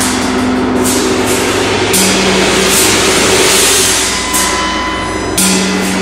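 Four large tam-tams sounding together in a dense, sustained, very loud wash. Fresh strokes come at the start, about two seconds in, and again near the end.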